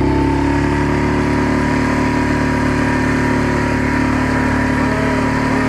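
Small boat's petrol outboard motor running steadily at constant throttle, having just been opened up, its pitch settling right at the start.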